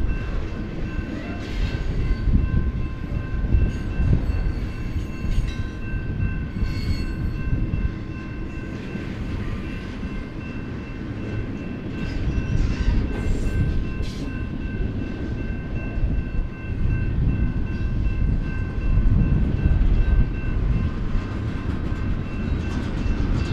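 BNSF double-stack intermodal freight train's well cars rolling past: a continuous heavy rumble and clatter of steel wheels on rail that swells and eases. A few steady high ringing tones run over it.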